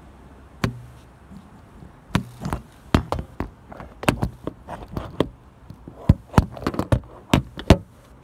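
Repeated taps, clicks and knocks of a phone being handled and adjusted in its stand right against the microphone, irregular and sometimes in quick pairs.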